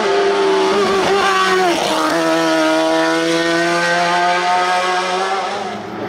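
Racing car engine running hard at high revs, its note dropping sharply about two seconds in, as for a gearchange or lift before a bend, then holding a steady high note before easing near the end.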